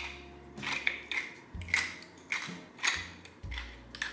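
Hand-twisted stainless steel grinder grinding seasoning into a bowl: a run of short, gritty ratcheting crunches, about two a second.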